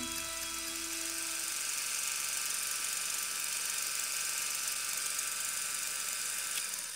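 The last held chord of the background music dies away in the first second or two, leaving a steady high hiss that begins to fade near the end.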